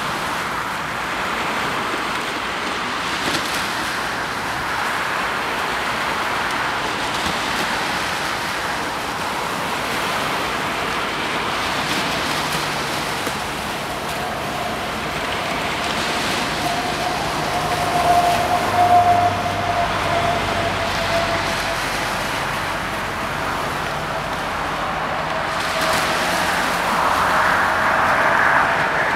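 Tugboat's diesel engines running as it manoeuvres on a river, over a steady wash of traffic and water noise. A low engine hum and a faint steady whine come in about halfway through.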